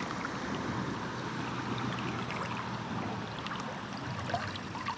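Creek water running steadily over the stream bed, with a brief tick about four seconds in.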